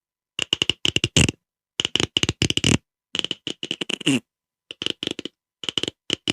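A short, rapid crackling sound effect: five quick runs of sharp clicks, each run under a second long, with brief pauses between them.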